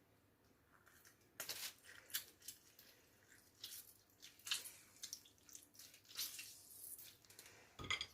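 Faint, irregular drips and small pops of liquid in a pot of rice cooking in boiling water.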